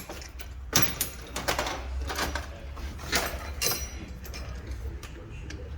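Metal hand tools clanking and clicking against the front suspension as the sway bar link is being unbolted, in scattered sharp knocks about a second apart.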